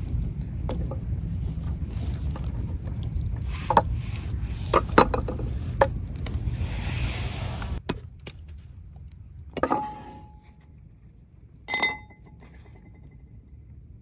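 Outdoor cooking sounds: a steady low rumble with a few sharp knocks. The rumble cuts off abruptly, and two short clinks of cookware or utensils follow, each ringing briefly.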